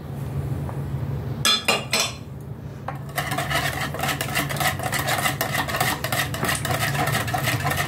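A wire whisk beating orange juice and corn oil in a plastic bowl by hand. A few sharp clicks come around two seconds in, then from about three seconds the fast, even clicking and sloshing of steady whisking.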